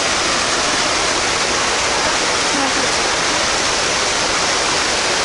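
Steady rushing of flowing water, an even, unbroken hiss.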